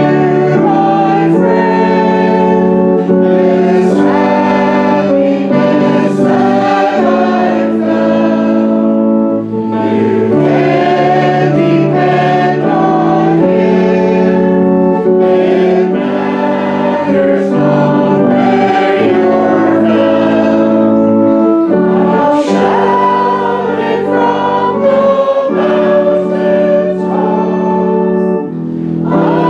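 A church congregation singing a hymn together in a slow, sustained chorus, with organ accompaniment under the voices.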